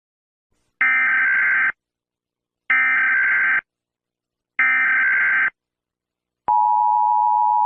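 Emergency Alert System SAME header: three short bursts of screeching data tones, each just under a second, followed about a second later by the steady two-tone EAS attention signal (853 and 960 Hz).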